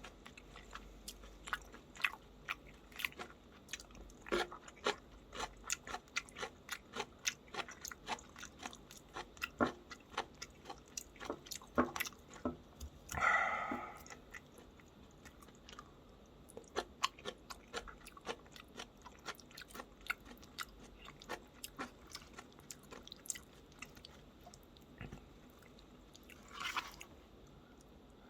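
A person chewing and biting food in a close-up series of small, crisp crunches and clicks. A brief louder noise comes about halfway through and again near the end.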